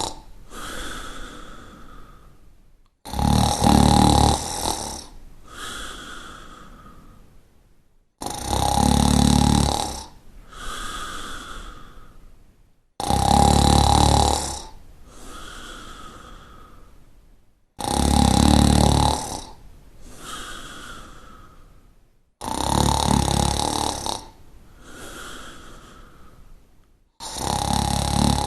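A sleeping person snoring: a loud, rattling snore on each breath in, followed by a softer breath out, repeating about every five seconds.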